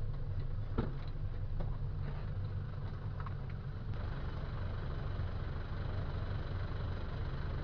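Vehicle engine running steadily with a low, even hum; a few faint clicks in the first two seconds.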